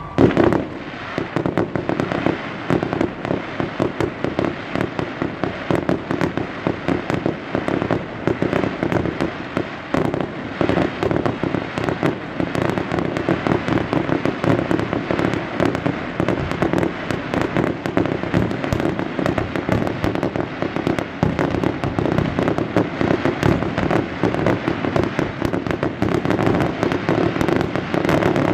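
Aerial fireworks display going off in a dense, continuous barrage of rapid bangs and crackles, opening with a loud bang.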